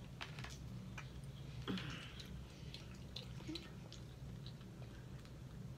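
Faint eating sounds: chewing with scattered small clicks of a fork and food being handled. There is a brief louder scrape about two seconds in, over a steady low hum.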